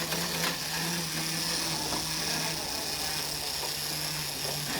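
Clockwork spring motor of a 1930s Marx tin lithographed wind-up taxi toy running down, a steady mechanical whir of its gears.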